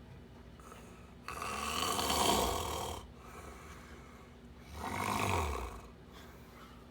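A person snoring loudly. There are two rasping snores: a long one that starts abruptly about a second in, and a shorter one about three and a half seconds later.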